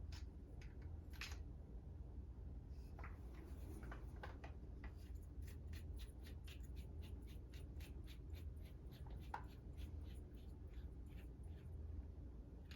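Small clicks and taps of plastic and metal toilet tank lever parts being handled and fitted, with a run of even clicks, about four a second, in the middle. A steady low hum runs underneath.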